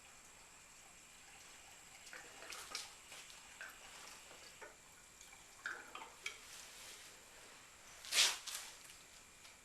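Fresh non-alcohol gasoline being poured from a can into a fuel container to mix two-stroke fuel: faint pouring with scattered clinks of the containers, and a louder clunk about eight seconds in.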